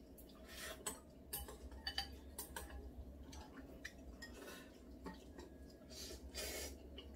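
Chopsticks clicking and clinking against bowls and a pot while noodles are eaten, with a noisy noodle slurp about six seconds in.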